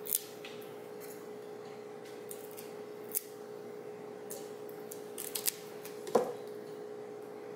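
A few short, sharp clicks and snaps of hands handling paper craft pieces and adhesive dots, the loudest about six seconds in, over a steady faint hum.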